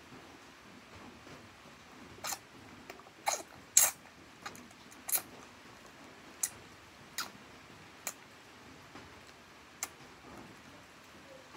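Baby sucking on its fingers, making short sharp smacking clicks at irregular intervals, about nine in all, the loudest a little under four seconds in.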